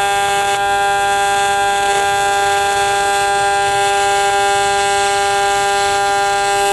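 AC TIG arc on aluminum from a Miller Dynasty 350 inverter welder, set to 200 Hz and 75% electronegative balance, burning as filler rod is fed in: a steady, loud, high-pitched buzz that holds an even pitch throughout.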